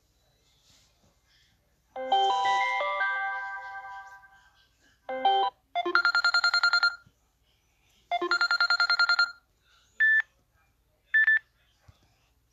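Samsung Galaxy S9 ringtones previewed one after another. About two seconds in comes a run of chime notes that rings out and fades over two seconds or so. Then a short tone, a rapid trilling tune played twice, and two brief beeps, each clip cut off after about a second.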